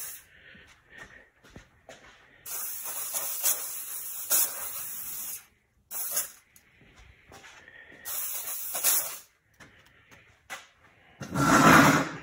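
Preval aerosol sprayer hissing in separate bursts: one of about three seconds, a short one, then one of about a second. It is spraying poorly, which the owner puts down to a clog from a thicker material used in it before. Near the end comes a brief, louder dull noise.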